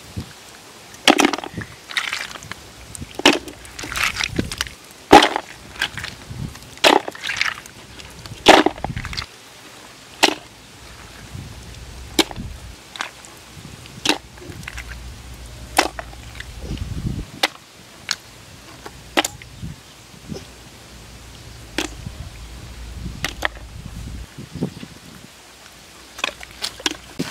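A series of sharp clicks and knocks, hard things striking each other, about one a second at first and then further apart, with a low rumble in places.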